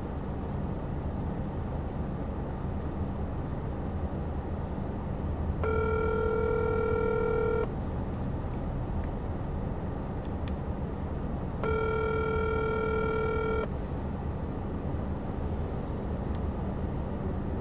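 Ringback tone of an outgoing smartphone call that is ringing unanswered, heard through the phone's speaker: two steady two-second rings about six seconds apart, with a third starting right at the end. A low steady hum runs underneath.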